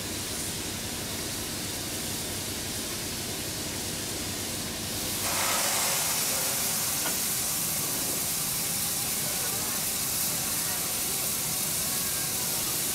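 Steam hissing from a standing 0-6-0 saddle-tank steam locomotive. About five seconds in the hiss jumps suddenly louder and stays strong: steam blowing off.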